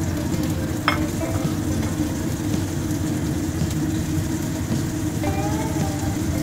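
Salted fish frying in hot oil in a pan: a steady sizzle, with one sharp tap about a second in.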